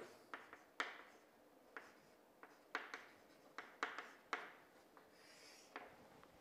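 Chalk writing on a green chalkboard: a dozen or so short, faint taps and scratches as the letters go down, then a longer scrape near the end as the word is underlined.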